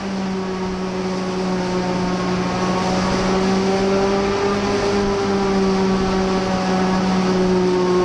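Claas Jaguar 870 forage harvester running steadily while chopping miscanthus and blowing it out of the spout into a trailer: a steady mechanical hum over a rushing hiss.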